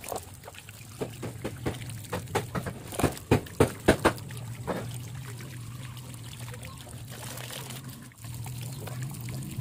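Water pouring from a hose spout onto bare feet as they are scrubbed by hand, with a quick run of splashes and wet slaps during the first few seconds, then a steady trickle and pour. A steady low hum runs underneath.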